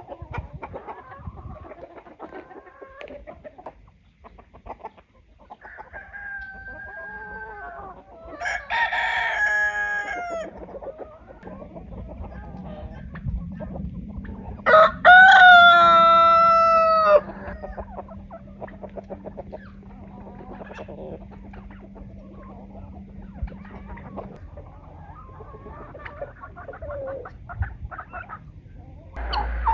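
Chickens clucking, with a rooster crowing: shorter calls earlier on, then one long, loud crow about halfway through.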